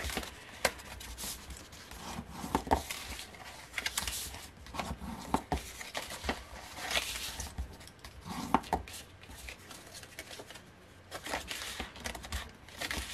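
Scored designer series paper being folded and creased by hand along its score lines: dry paper rustling and crackling, with scattered light clicks and taps on the craft mat.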